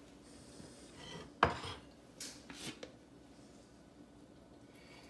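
Kitchenware handled on a counter: a glass bowl set down on a cutting board with one sharp knock about a second and a half in, then a few lighter clinks and scrapes.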